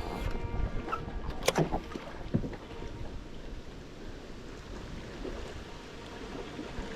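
Steady rush of a fast-flowing river with wind on the microphone, broken by a few sharp knocks in the first couple of seconds.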